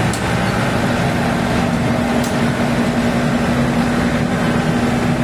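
Yanmar AW70V rice combine harvester running steadily, a constant machine drone with a steady hum.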